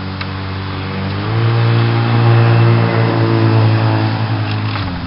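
Water filling a locomotive tender from a water-tower spout, with a steady hum that steps up in pitch and loudness about a second in, then cuts off shortly before the end.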